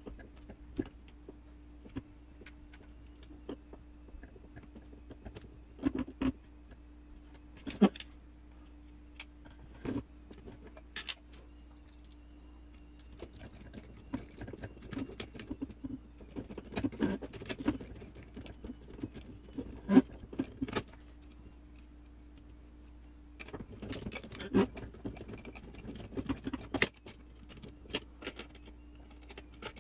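Scattered clicks, taps and rattles of small metal screws, lock nuts and hand drivers against the metal and plastic parts of an RC rock crawler chassis, as leaf-spring axle mounts are bolted on. The sharpest clicks come about a third and two thirds of the way through, with busier stretches of handling noise in between, over a faint steady hum.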